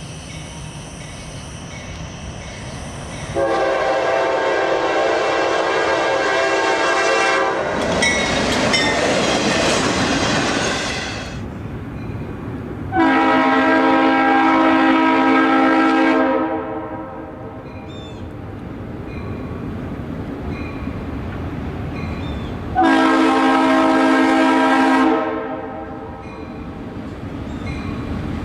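Locomotive multi-chime air horn sounding four long blasts, the second rougher than the others, over the steady rumble and clickety-clack of a train rolling by.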